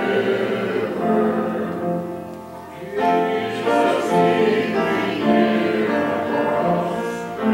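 Congregation singing a slow hymn in long held notes, softening briefly about two seconds in.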